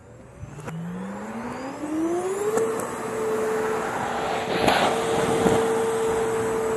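Bissell PowerForce canister vacuum motor heard in reverse. Its whine climbs in pitch over about two seconds, which is its spin-down played backwards, then runs steadily. A short rush of noise and a click come about two-thirds of the way through.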